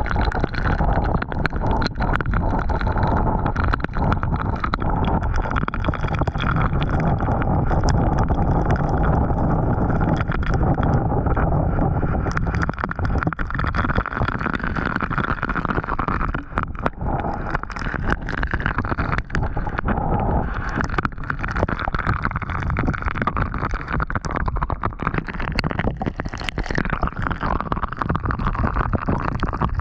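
Storm wind buffeting the microphone of a GoPro action camera taped up outdoors, with wind-driven rain striking the camera in a constant patter of sharp ticks.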